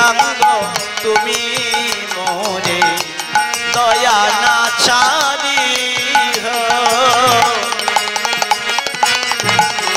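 Instrumental interlude of Bengali kirtan devotional music: steady hand-drum strokes and percussion under a wavering melody line. The melody drops out near the end, leaving the drumming.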